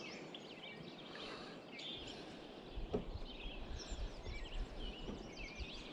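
Small birds chirping and twittering over the steady rush of flowing river water. A low rumble joins in from about two seconds in, with a single sharp click near the middle.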